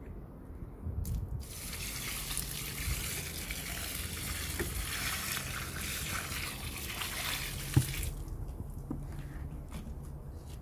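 Water mixed with fertilizer poured from a plastic bucket onto the soil and leaf litter at the base of a jabuticaba tree: a steady splashing gush that starts about a second and a half in and stops abruptly about eight seconds in, followed by a few drips.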